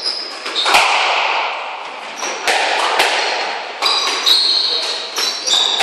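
Squash rally: the ball cracking off rackets and the court walls several times at an irregular pace, each hit echoing in the enclosed court, with high-pitched rubber-soled shoe squeaks on the wooden floor.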